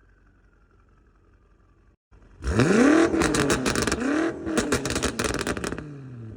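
BMW F90 M5's twin-turbo V8, with catless downpipes and a titanium exhaust, revved hard twice about two seconds in. Each rev rises and falls in pitch, and a rapid crackle of exhaust pops comes as it drops back.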